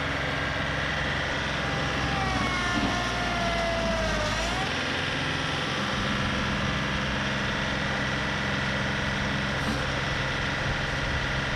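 A John Deere compact tractor's diesel engine running steadily while its front-end loader bucket pushes against a tree trunk. From about two seconds in, a whine slides slowly down and then rises sharply near the five-second mark.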